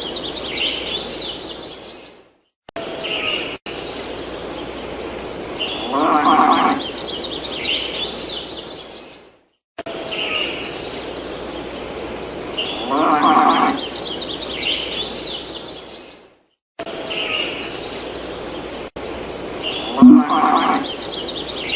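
Looped farm sound effect: a cow mooing three times, about seven seconds apart, with birds chirping between the moos.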